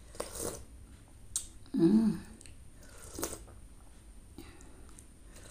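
Close-up eating sounds: a spoonful of coconut-milk kolak broth being sipped, with a few sharp wet mouth clicks and smacks, and a short hummed 'mm' about two seconds in.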